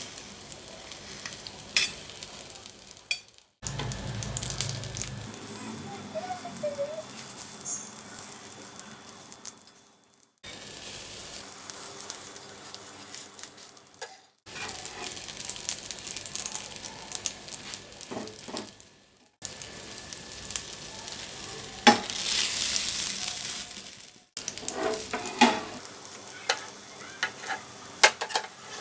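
Egg mixture sizzling in a frying pan, with a spatula scraping and tapping against the pan now and then. The sizzle breaks off abruptly several times and starts again.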